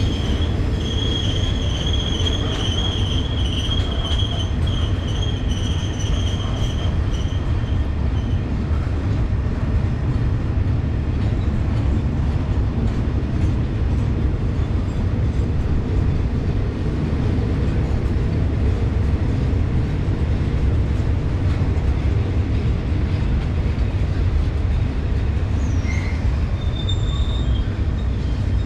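Freight train rolling through the station with a steady low rumble. A high-pitched wheel squeal runs through the first several seconds and fades out about eight seconds in.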